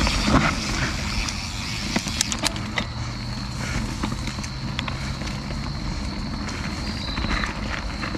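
Canyon Spectral CF mountain bike riding along a dirt trail: a steady rumble of tyres and wind, with sharp clicks and rattles as it goes over rough ground. A thin high whine comes in about three seconds in.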